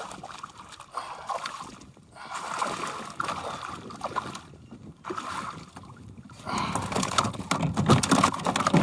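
Water sloshing and splashing around a kayak while a hooked smallmouth bass is fought at the boat, coming in uneven stretches with short lulls and busier near the end.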